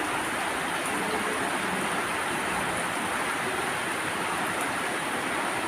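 Steady, even rush of flowing floodwater.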